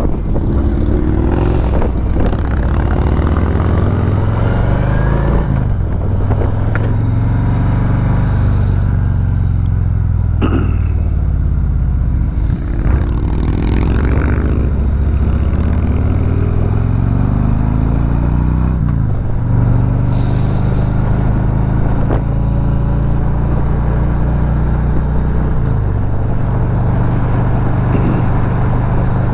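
Harley-Davidson V-twin motorcycle engine pulling away and accelerating up through the gears. The revs climb, then drop sharply at each of several upshifts, and there is wind rush from riding speed.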